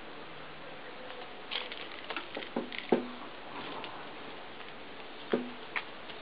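Pigeon pecking at food on a cloth-covered table: scattered light taps and clicks, a quick run of them between about one and three seconds in and a couple more near the end.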